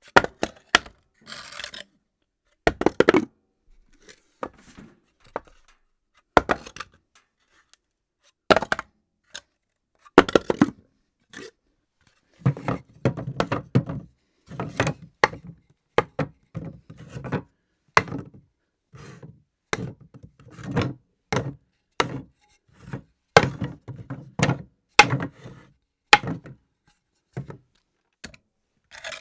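Objects being dropped on a hard floor, one after another: a long run of sharp knocks and thuds with short clattering bounces. They come singly and spaced out at first, then close together in the second half.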